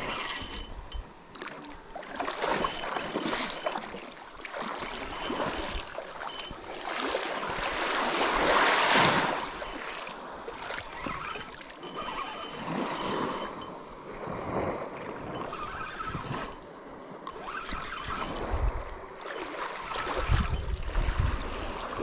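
A spinning reel being cranked to bring in a hooked fish, with wind rushing on the microphone and small waves washing at the water's edge; the rushing noise rises and falls unevenly, loudest about halfway through.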